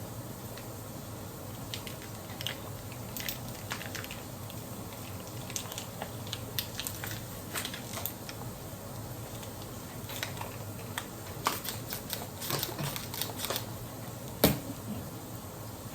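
Plastic water bottles crinkling and crackling in irregular clicks as they are drunk from quickly, with one louder snap about 14.5 seconds in.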